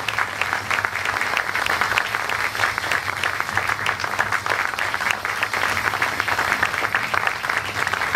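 Theatre audience applauding steadily, many hands clapping at once at an even level with no let-up.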